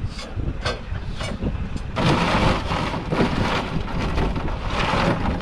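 Wind buffeting the microphone as a steady low rumble, with a few faint clicks at first, then from about two seconds in loud, pulsing rustling hiss.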